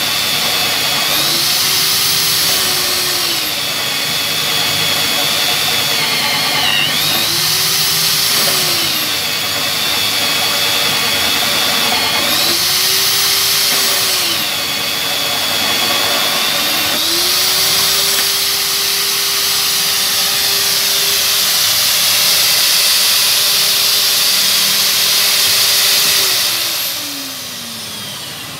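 Magnetic drill motor running and cutting into steel, the note shifting and a high hiss rising in four stretches as the cutter is fed in, the last one long. Near the end the motor spins down.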